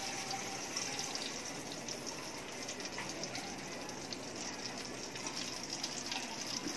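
Butter and oil sizzling in a hot aluminium pot as the butter melts: a steady hiss with fine crackles.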